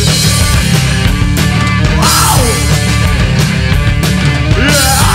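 A garage-psychobilly band playing loud and live: drum kit with cymbals, electric guitar and bass, with a few sliding notes over the top.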